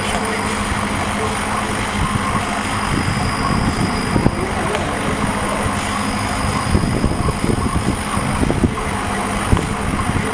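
Laser cutting machine running as it cuts acrylic sheet: a steady machine hum and hiss with irregular low rumbles.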